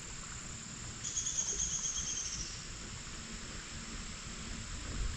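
Faint outdoor ambience with an insect's rapid high trill, a quick run of chirps starting about a second in and lasting about a second and a half.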